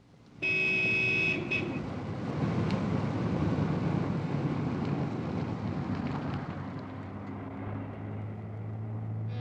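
Street traffic with a car engine running as a saloon car drives along. A horn sounds once, about half a second in, for roughly a second.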